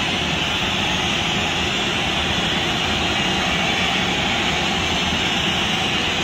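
Loud, steady roar of a packed football stadium crowd as a penalty in a shootout is about to be taken.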